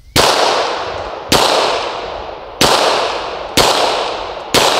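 Five shots from a Smith & Wesson M&P 40 pistol in .40 S&W, slow aimed fire about a second apart. Each sharp report is followed by a fading echo.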